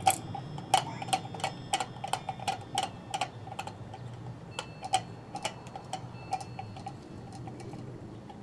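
Sharp plastic clicks and ticks, several a second, as the plastic housing of a solar LED spotlight is twisted and pulled apart by hand. The clicks come thickly for about four seconds, then thin out.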